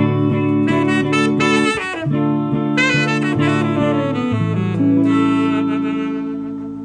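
Music with a saxophone or horn melody over a bass line, ending on a long held note that fades away.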